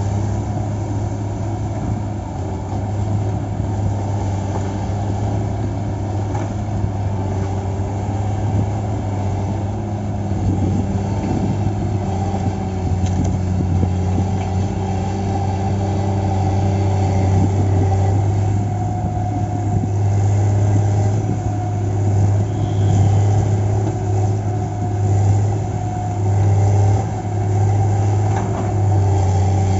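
Diesel engine of a log-loading machine running steadily, swelling in loudness several times near the end as it works under load.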